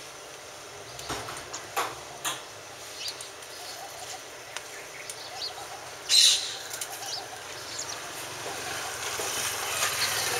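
Parrots at a bird feeder making scattered short, high calls, the loudest a burst about six seconds in.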